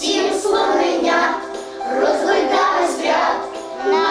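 A children's song with singing voices.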